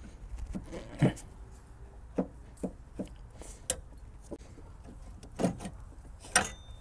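Scattered knocks, clicks and scrapes of a loosened alternator being worked around by hand in a cramped engine bay, metal bumping against brackets and hoses, with a sharper knock about a second in and several more near the end.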